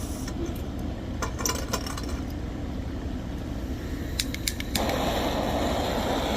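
A few small clinks, then three quick igniter clicks and a steady hissing rush starting near the end: a butane dab torch being clicked alight and left burning. A steady low hum runs underneath.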